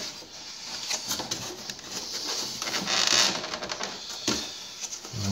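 Plastic side panel of a Jura Giga 5 coffee machine scraping and clicking as it is worked loose by hand, with a louder rub about three seconds in.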